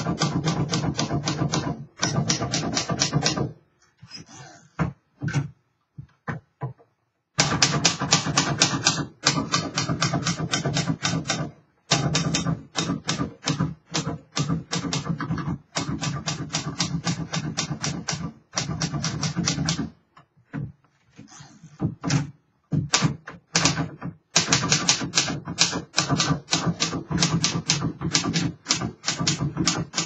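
A fully refurbished 1935 Royal O Model portable typewriter being typed on: quick runs of sharp key and typebar strikes, several a second, broken twice by short pauses with only a few scattered clicks.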